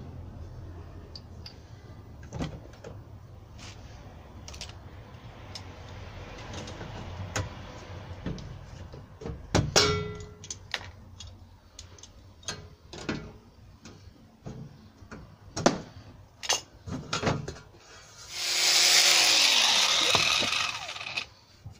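Scattered clicks, taps and knocks of a thin, film-covered metal sheet being handled and worked free from the foot of a door, with a sharper knock about ten seconds in. A louder rushing sound lasts about two seconds near the end.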